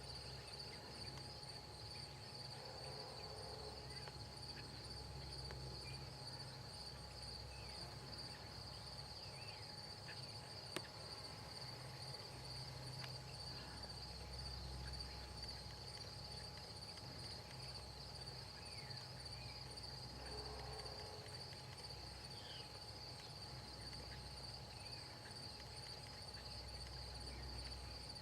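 Crickets chirping in a steady, continuous chorus over a low, steady rumble, with a few faint short chirps scattered through.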